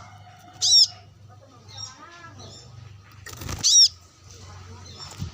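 Brown-throated sunbird calling: two loud, high, sharp notes about three seconds apart, with softer chirps between them, over a steady low hum.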